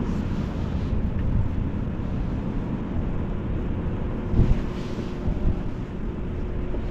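Wind buffeting the microphone in a steady low rumble, with a stronger gust about four and a half seconds in.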